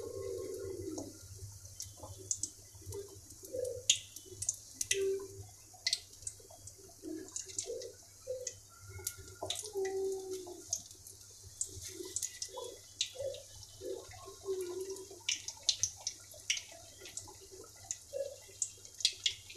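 Egg-and-flour batter frying in hot oil in a karai: a quiet sizzle with many scattered crackles and pops. Short, lower scraping and stirring sounds from the spatula working in the pan come and go.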